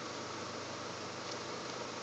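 Steady hiss and low hum inside a car with its engine idling.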